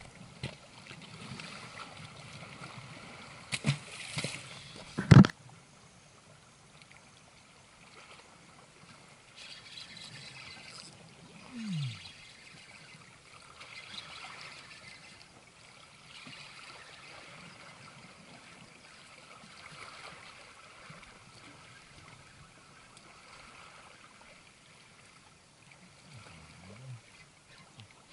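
Sea water trickling and lapping against shoreline rocks. A few sharp knocks come about four seconds in, and the loudest one follows a second later.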